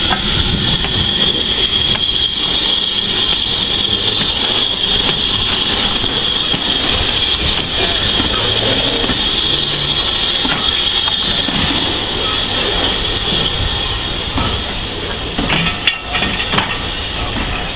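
Steam-hauled train rolling slowly past: BR Standard Class 4 2-6-0 locomotive 76084 and then wooden teak carriages, a steady rumble of wheels on the rails. A few sharp clicks and knocks come near the end.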